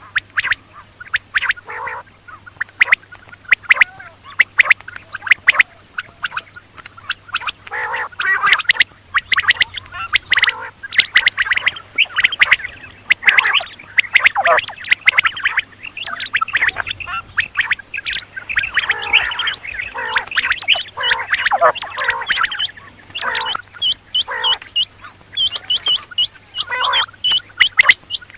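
Quail calling: a dense run of short, sharp chattering and clicking notes, many in quick succession with brief pauses between bouts.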